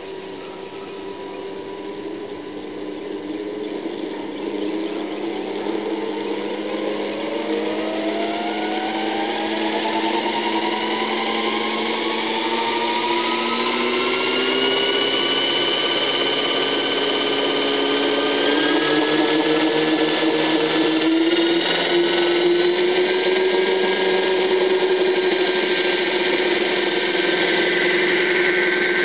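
A radio-controlled UH-72 Lakota scale model helicopter spooling up: its motor and rotor whine rises steadily in pitch and loudness through the first half, then holds as a steady high whine as the model lifts off near the end.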